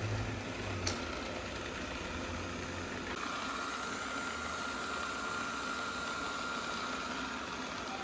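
Xiaomi robot vacuum's drive motors running steadily as it drives itself back toward its charging dock. A low hum fades out in the first second, and a steady high whine comes in about three seconds in.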